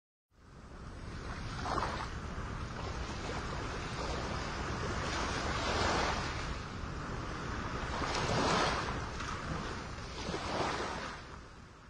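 Sea surf washing onto the shore in a series of swells, with some wind. It fades in just after the start and dies away near the end.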